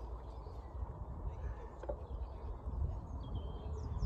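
Outdoor ambience: wind buffeting the microphone as a low, uneven rumble, with a light click about two seconds in and a few faint bird chirps near the end.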